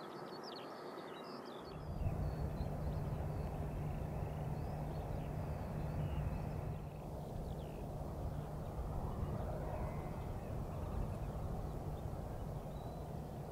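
Open-country outdoor sound: faint bird calls at first, then, from an abrupt change about two seconds in, a steady low rumble with only faint calls over it.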